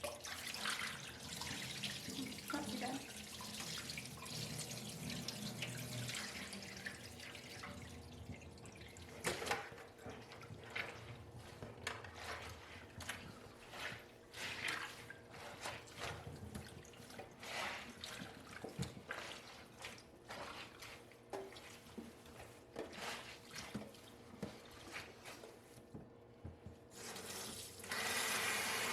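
Water draining out of a dry bag of soaked towels into a sink: a steady pour for the first several seconds, then irregular splashes and drips. Near the end a tap comes on and runs steadily.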